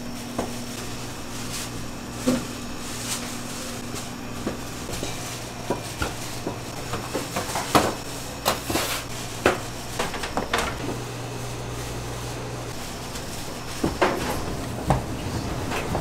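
Bakery kitchen work: scattered clacks and knocks of handled equipment, bunching together in the middle and again near the end, over a steady low machine hum.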